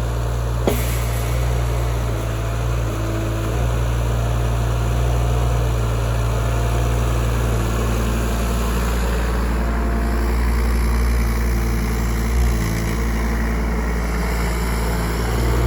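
Excavator engine running steadily while digging out a drainage channel, with its note shifting a little as the load changes. A single sharp click comes about a second in.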